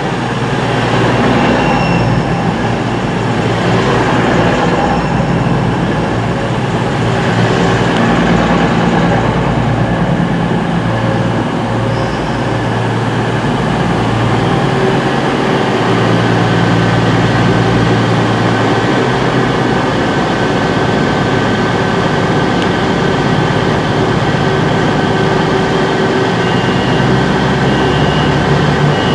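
Diesel passenger train running at the station, its engine note shifting up and down over a steady rumble.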